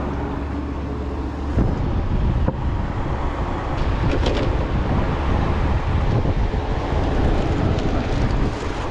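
A car engine running, with wind rumbling on the microphone; the steady hum gives way to a rougher, uneven rumble about a second and a half in.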